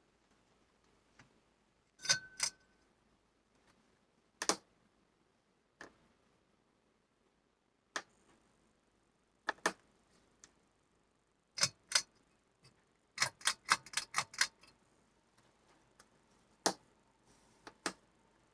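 A series of sharp, irregular clicks and clacks, including a quick run of about eight in a row about three quarters of the way through. A faint steady tone comes in after that run.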